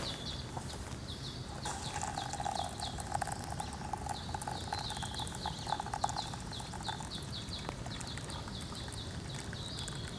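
Short high chirps repeating steadily, about three a second, from a bird or insect. Between about two and seven seconds in there is a steady pouring sound of liquid.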